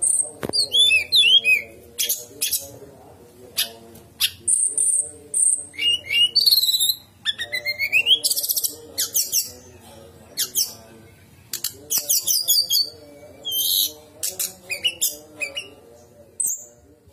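A caged songbird singing a fast, varied song in bursts of a second or two with short gaps: rapid chattering notes, sharp whistles and quick rising glides. A faint low hum runs underneath, and the song stops just before the end.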